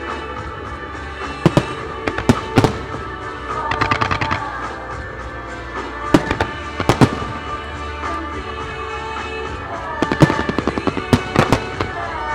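Aerial firework shells bursting with sharp bangs, over music. There are a few single reports in the first few seconds, two more about halfway and a quick run of bangs near the end, with a patch of crackling about four seconds in.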